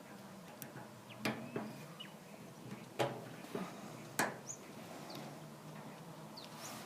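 Lock pick and tension wrench clicking and scraping in the keyway of a rusty 30 mm brass padlock, with a handful of sharp metallic clicks, the loudest about three and four seconds in.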